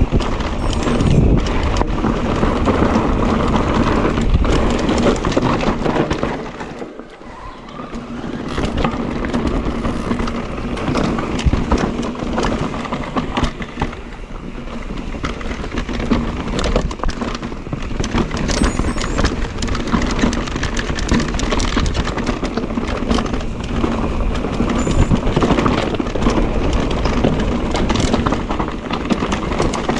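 Mondraker Crafty electric mountain bike ridden over a rough trail: tyres running over stones and the bike rattling with dense small knocks, briefly quieter about seven seconds in.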